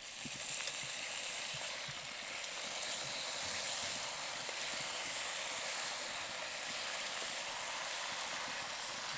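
Rice-flour nokshi pitha deep-frying in hot oil: a steady, dense sizzle.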